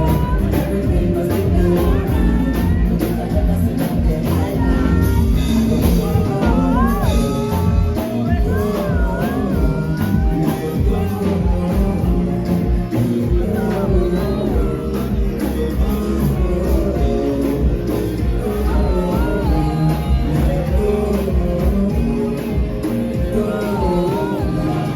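Loud music: a song with a sung vocal over a dense, steady bass line.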